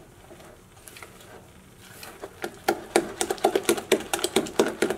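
Silicone spatula beating a thick, wet batter in a stainless steel bowl: quiet scraping at first, then from about two seconds in a fast run of wet slaps and clicks, several a second, growing louder as the beating speeds up.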